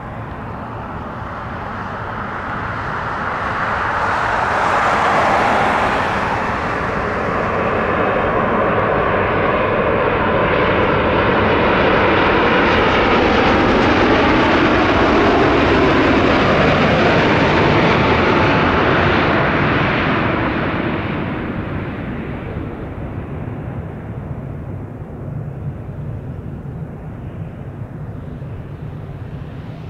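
Engines of a wide-body jet airliner passing close by: the noise builds over several seconds, stays loud for about a dozen seconds with a tone sliding down in pitch, then fades away.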